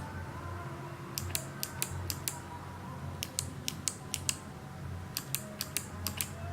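Kailh BOX clicky mechanical key switches with GMK keycaps being pressed one after another, sharp, crisp clicks in three quick runs of about six presses each, with short pauses between runs.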